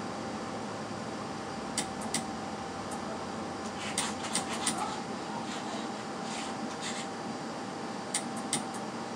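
Steady background hum with a thin constant tone in it, broken by scattered sharp clicks: a pair about two seconds in, a quick cluster about four seconds in, and another pair near the end.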